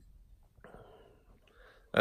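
Near silence with a soft breath, a faint hiss lasting under a second, about half a second in.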